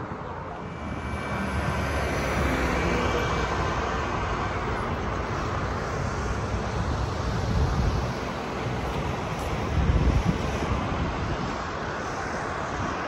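Steady outdoor rushing noise that builds over the first two seconds, with wind buffeting the microphone in heavy gusts, strongest about ten seconds in.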